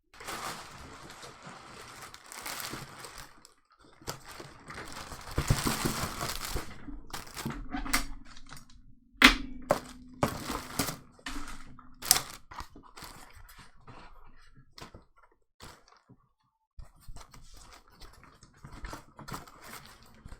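Plastic parts bags rustling and crinkling as they are handled and opened, followed by scattered sharp clicks and knocks of small plastic parts being set down on the floor, the loudest knocks about nine and twelve seconds in.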